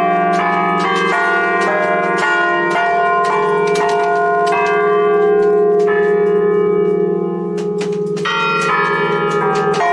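Festive ringing of a six-bell church peal in B-flat, cast by De Poli in 1910. Strokes follow each other several times a second in a changing pattern of pitches over the steady hum of the deeper bells.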